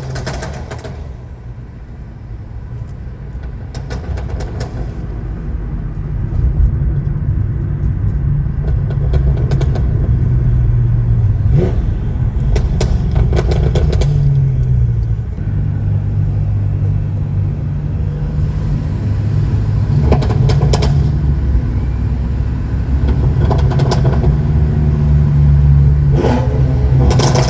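Stage 2-tuned BMW F10 M5 Competition's twin-turbo V8 pulling through the gears, its deep drone rising and dropping in pitch at the shifts and growing louder over the first several seconds. Sharp exhaust pops and crackles break in at intervals.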